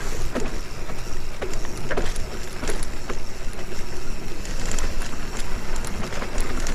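Mountain bike rolling down a dirt trail, heard from a handlebar camera: a steady rumble of wind and tyre noise, with the bike rattling and clicking over bumps.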